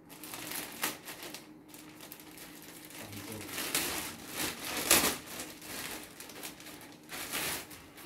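Thin plastic packaging bag rustling and crinkling in irregular bursts as it is pulled open and a coiled hose is drawn out of it, loudest about halfway through.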